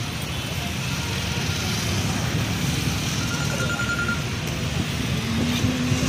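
Steady rumble of vehicle engines and road traffic.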